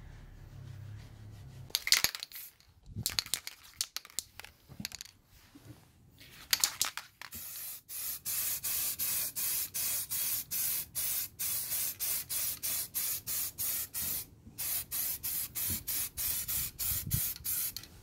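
Aerosol spray paint can spraying a metal bracket in short repeated hissing bursts, about two a second, with a brief pause partway through. A few scattered knocks and rattles come first.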